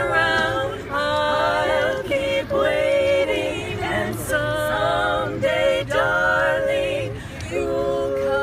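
Voices singing a cappella, held notes in harmony with no instruments.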